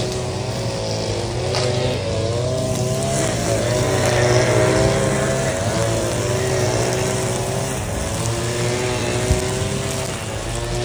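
Several petrol grass-cutting engines running together. Their pitch wavers up and down over a steady hum.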